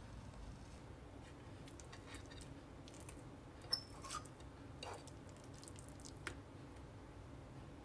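A few faint clicks and taps of a metal fork against a plate as it cuts into and lifts a piece of soft omelette, about four in the second half, over quiet room tone.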